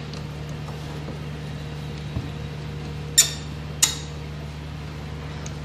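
Two sharp metallic clicks, about two-thirds of a second apart, as a screwdriver works the terminal screws of a rotary changeover switch, with a faint knock just before them and a steady low hum underneath.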